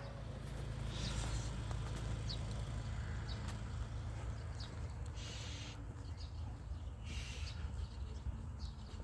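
Scattered short, high chirps, most likely small birds, over a steady low rumble. Three brief rustling bursts come about a second in, past the middle, and near the end.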